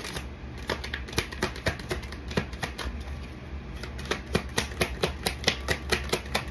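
Tarot cards being shuffled and handled, a quick irregular run of light card clicks and slaps, several a second, over a low steady hum.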